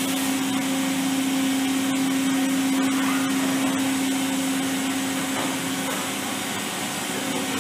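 Makino A77 horizontal machining center's spindle running at 6,000 RPM, a steady whine holding one even pitch over the machine's background hum.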